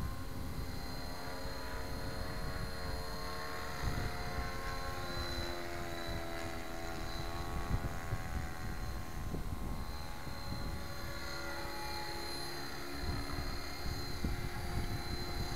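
Electric Gaui X5 RC helicopter in flight, running in idle-up at 70% throttle without a governor. Its motor and rotor whine is a stack of tones that drifts gently up and down in pitch as it flies, over a rough low rumble.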